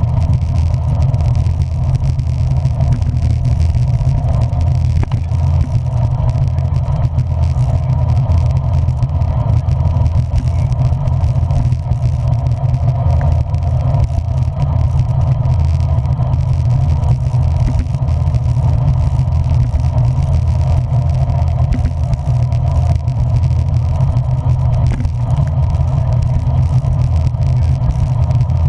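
Steady low rumble of a vehicle under way, road and engine noise heard while riding in the rain.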